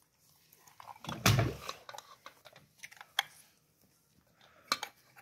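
Aluminium lever-type hand juicer pressing halved kinnow mandarins: a loud clunk of the metal press about a second in, then scattered clicks and knocks of the lever and cup, sharpest near three and nearly five seconds in.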